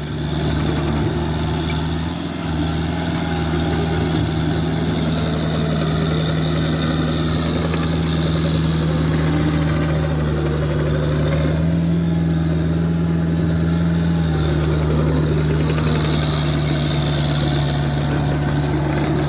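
Excavator engine running steadily while grading dirt, its pitch rising briefly about twelve seconds in before settling back.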